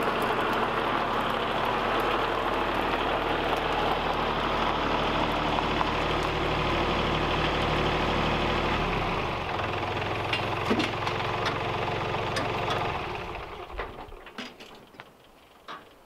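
Kubota L3901 tractor's three-cylinder diesel engine running, dropping to a lower speed about nine and a half seconds in, then shut off about four seconds later. A few light knocks follow.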